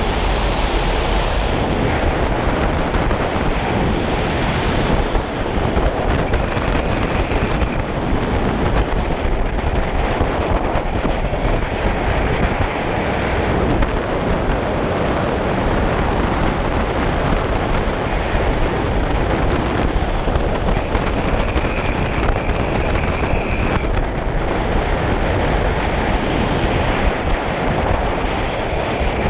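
Heavy, steady wind noise buffeting the microphone of a camera on a vehicle moving at speed, with a faint high whine rising out of it a few times.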